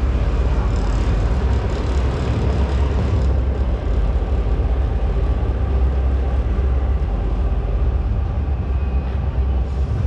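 Wind buffeting the microphone: a loud, steady low rumble that does not build or fade.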